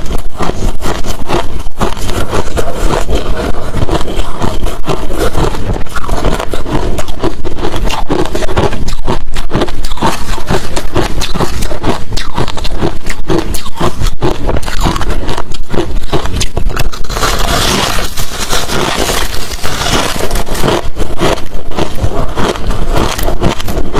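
Hard crushed ice and shaved-ice chunks crunched between the teeth in a dense, irregular run of loud crunches, brightest and hissiest about three-quarters of the way through.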